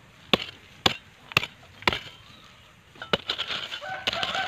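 A hoe blade chopping into garden soil to dig up taro corms: sharp strikes about two a second for the first two seconds, another about three seconds in, then a rougher, continuous stretch near the end.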